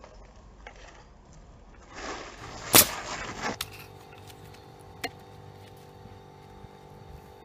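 Pneumatic roofing nail gun fires once, driving a nail through asphalt ridge cap shingles: a single sharp, loud shot about three seconds in. A fainter click follows about two seconds later, over a steady low hum.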